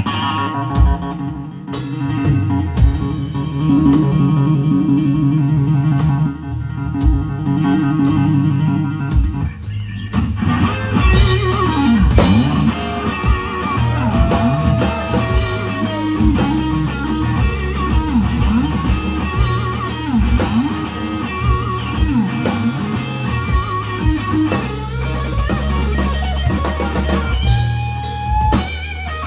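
Live blues band playing a slow blues: electric guitar carries the lead over bass and drums. About ten seconds in the drums and cymbals get louder and brighter, and the guitar bends notes up and down.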